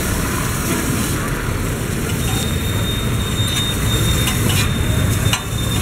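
Noodles sizzling on a hot flat pan over a gas burner as they are stirred and tossed, with a few short metal clicks from the utensil in the second half, over steady road-traffic rumble.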